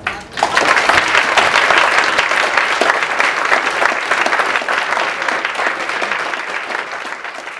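Audience applauding, the clapping starting about half a second in and fading away near the end.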